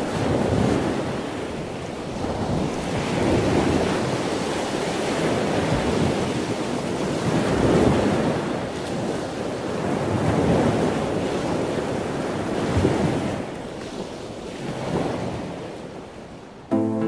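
Ocean waves washing, a steady rush that swells and eases every two to three seconds. Music cuts in abruptly just before the end.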